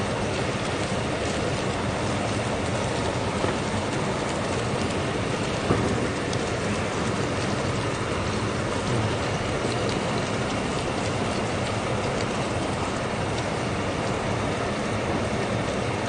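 Pork belly sizzling steadily on a griddle plate over a portable gas burner, a constant hiss with a couple of small pops.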